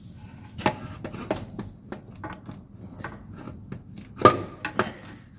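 Metal knocks and clicks of a starter motor being worked back into place under a Jeep Grand Cherokee, bumping against the gearbox housing and chassis. The loudest is a ringing clank about four seconds in.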